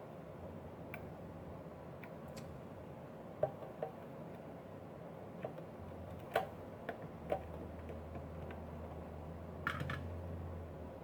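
Scattered light clicks and taps of small hand tools working at a silicone-glued nut inside a hot air station, with a faint low hum coming in about halfway.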